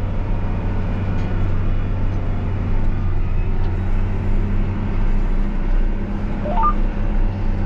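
John Deere 8RX 410 tracked tractor running steadily with a constant low engine drone. Near the end, a short rising run of about four quick electronic beeps sounds over it.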